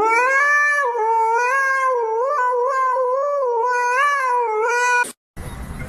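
Husky howling: one long howl that rises in pitch at the start, then wavers up and down for about five seconds before cutting off suddenly.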